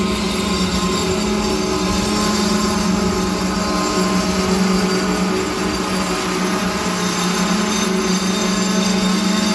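Freight train's brakes squealing as its tank cars roll slowly past, slowing the train to a stop at a red signal. A loud, steady squeal of several held tones over the rumble of the rolling cars.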